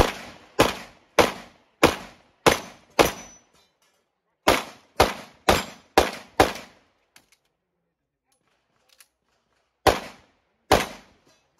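STI Edge semi-automatic pistol fired in quick strings: six shots a little over half a second apart, a short pause, five more at the same pace, then two more shots near the end after a longer pause.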